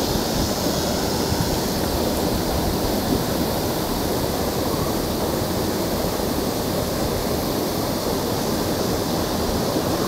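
Steady rush of water from a creek waterfall.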